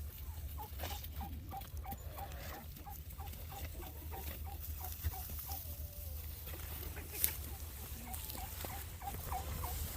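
Poultry bird giving a long run of short, soft, evenly spaced calls, about three a second, pausing a few seconds in and resuming near the end, over a steady low rumble.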